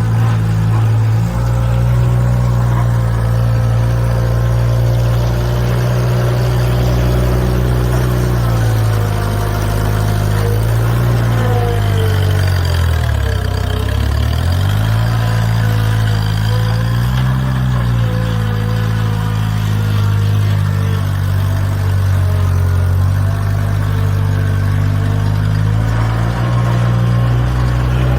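Mustang 345 skid steer's gasoline engine running steadily. In the middle its speed sags and recovers twice, dropping lowest about halfway through.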